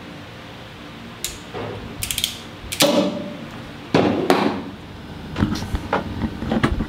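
Irregular knocks, clinks and rattles of hand tools and metal fittings being handled, coming in short clusters from about a second in, over a low steady background.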